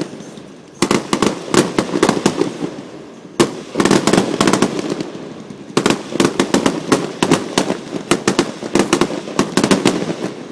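Fireworks going off in rapid crackling, popping bursts: dense runs of sharp reports in three clusters, the longest filling the second half.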